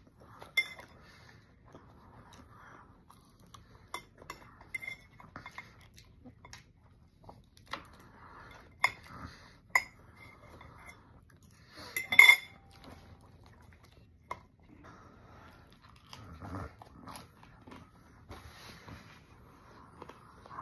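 Metal fork clinking and scraping on a plate while eating scrambled eggs, with chewing between the clinks. The clinks come every second or so, and the loudest clatter is about twelve seconds in.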